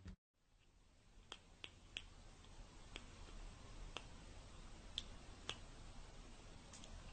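Faint room tone with about eight soft, sharp clicks at irregular intervals.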